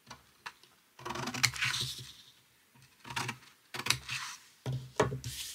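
Scissors snipping through paper in a series of short cuts, about four snips with light blade clicks between them.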